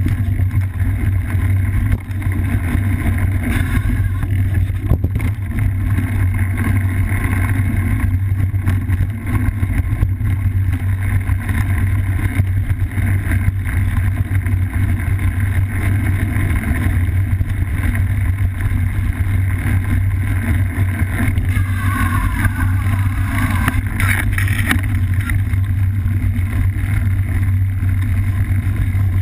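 Steady low rumble and wind noise on an action camera mounted on a cyclocross bike riding a dirt singletrail, from trail vibration and air rushing past the camera. A few short gliding, warbling sounds come in a little after two-thirds of the way through.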